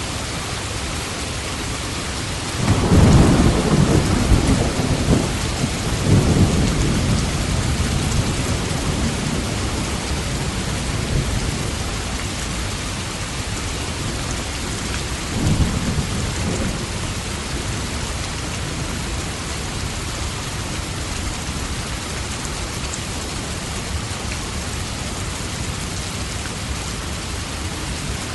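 Steady rain hissing, with a long roll of thunder starting about three seconds in and slowly fading, and a second, weaker rumble of thunder about halfway through.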